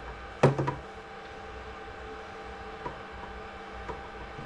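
Hard knocks from things being handled on a workbench: one sharp knock about half a second in with two or three quicker ones right after, then two faint clicks later. A steady electrical hum runs underneath.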